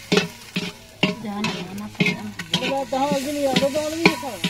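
Hand scraping and mixing a spiced onion mixture in a large aluminium pot: a run of scrapes and light knocks against the metal, about two a second.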